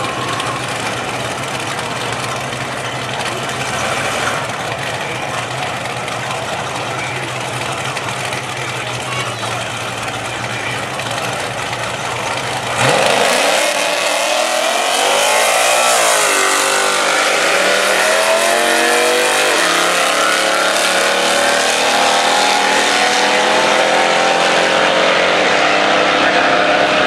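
Drag-race car engines idling at the start line, then a sudden loud full-throttle launch about 13 seconds in. The engine pitch climbs and drops a few times through the gear changes, then holds high and steady as the cars run down the strip.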